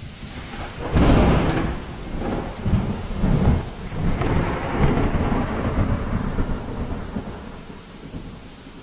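A loud peal of rolling thunder breaks about a second in, rumbling in several swells before dying away, over steady rain.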